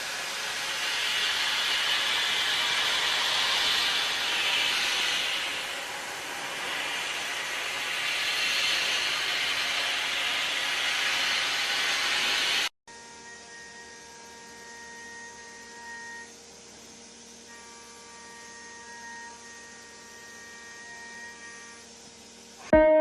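CNC milling machine cutting metal: a steady, noisy machining sound that swells and fades. About halfway through it cuts off abruptly and gives way to a quieter, steady machine hum with several held tones.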